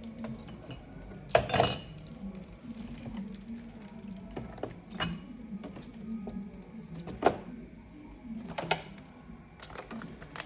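Dishes and food containers being handled and set down while a fridge is cleaned out: scattered knocks and clinks, the loudest a clatter about a second and a half in and a sharp knock about seven seconds in.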